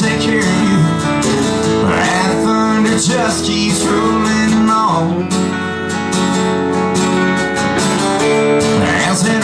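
A man singing a country song over his own strummed acoustic guitar, in a live solo performance.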